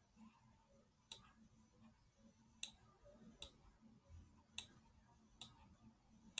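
Computer mouse button clicks, about five sharp single clicks spaced unevenly roughly a second apart, over a faint low hum.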